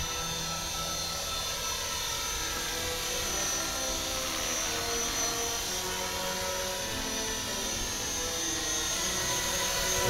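Electric 450-size radio-controlled helicopter (HK-450 TT Pro) in flight: a steady high whine from its motor with the whir of the spinning rotor blades.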